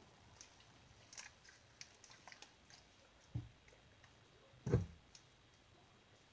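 Glossy, clicky slime being worked by hand: scattered small clicks and squelches, then two soft thumps about three and a half and four and a half seconds in, the second the louder.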